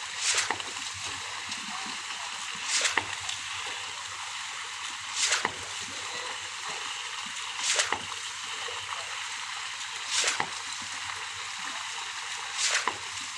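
Wet concrete discharging from a concrete pump hose onto a slab, surging and splashing in regular pulses about every two and a half seconds over a steady hiss, one surge for each stroke of the pump.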